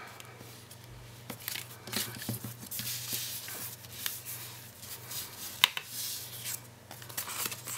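Cardstock being folded and handled, with a bone folder rubbing along the creases in scratchy strokes. A single sharp tap about two-thirds of the way through.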